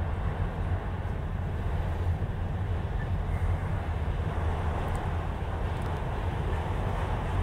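Union Pacific autorack freight cars rolling past: a steady, low rumble of the passing train.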